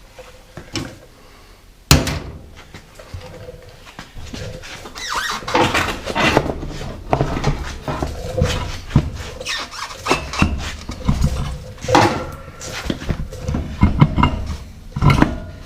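A car wheel being lifted onto the front hub and fitted: a sharp knock about two seconds in, then repeated irregular clunks, scrapes and squeaks of metal against metal.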